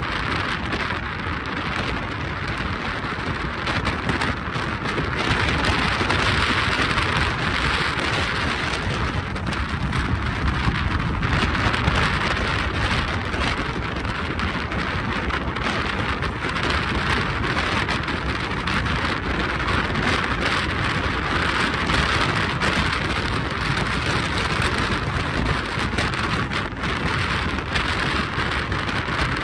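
Steady road noise of a car driving along a paved road: an even hiss of tyres and wind.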